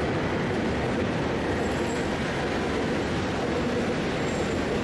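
Freight train wagons rolling past at a steady speed: the continuous rumble of steel wheels on rail, even in level throughout.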